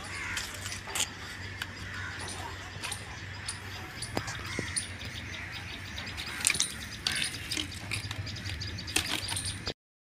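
Scattered light clicks, taps and rustles of a plastic crate, twine and dry grass being handled, over a low steady background hum. The sound cuts off abruptly near the end.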